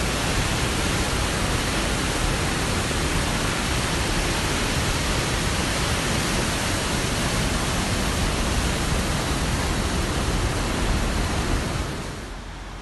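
Muddy flash-flood water rushing down a wadi in a loud, steady torrent, dropping to a quieter rush near the end.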